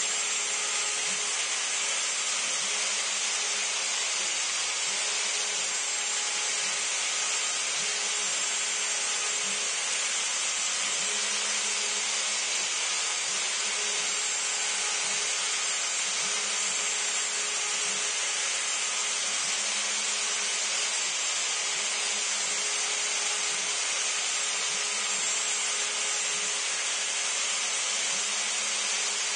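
Router spindle on a CNC machine running steadily while its bit cuts into cedar fence board, a constant, mostly high-pitched machining noise that holds unchanged throughout.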